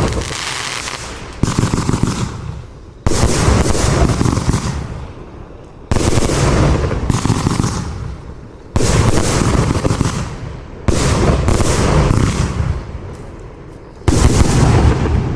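F2 compound firework cake firing, a sudden volley about every one and a half to three seconds, six in all. Each volley is a dense rattle of reports that trails off over a second or two before the next.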